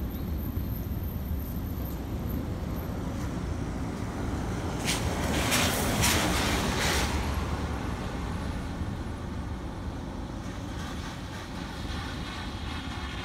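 A vehicle drives past close by on a wet road: its tyre and engine noise swells to a peak about six seconds in and then fades away. A steady low rumble runs underneath.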